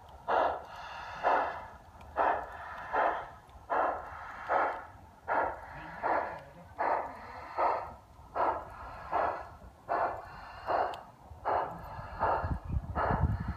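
Steady chuffing from a G-scale garden-railway Mallet steam locomotive model working along the track, about one chuff every 0.8 s. A low rumble grows louder near the end.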